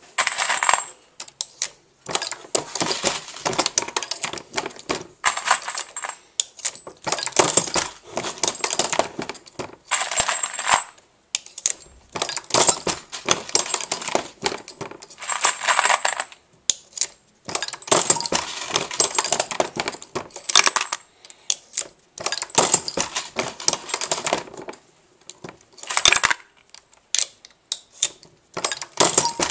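Dillon RL550B reloading press being worked by hand on .40 S&W: repeated metallic clinking and clattering of brass cases and copper-plated bullets against the shell plate and each other, in bursts a second or two long with short pauses.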